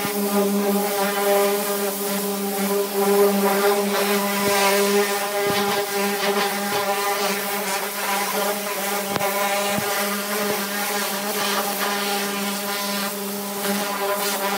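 Pressure washer running with a steady droning hum and the hiss of its water jet hitting the bare-metal car body, rinsing off the loosened paint and residue left by the chemical dip.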